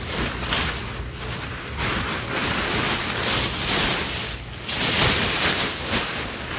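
Large black plastic garbage bag crinkling and rustling as it is pressed and lifted, in irregular swells of crackly noise.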